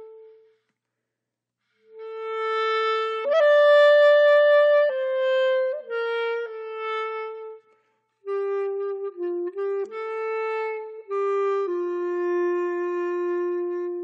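Background music: a slow single-line melody of held notes, with a pause at the start and a brief break about halfway through.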